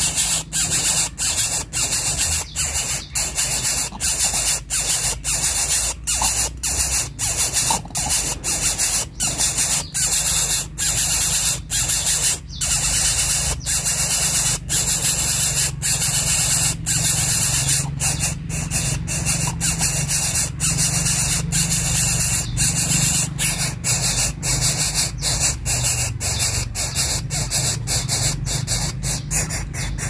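Greater coucal nestling hissing loudly as it begs: a harsh hiss broken by short pauses about twice a second, running on more unbroken in the second half.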